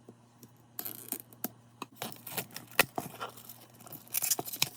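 Wrapping on a new CD album being torn open by hand: irregular crinkling and tearing with sharp clicks and scrapes, starting about a second in and loudest near the end.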